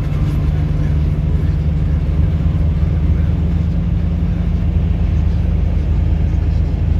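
A car cruising at motorway speed: a steady low drone of engine and tyre noise on the road surface.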